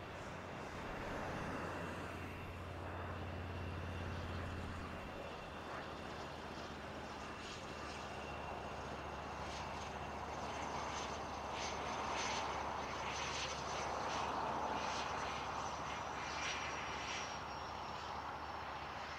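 Cessna 510 Citation Mustang light business jet arriving, its twin turbofans giving a steady rushing roar. A thin high whine falls slightly in pitch over the second half.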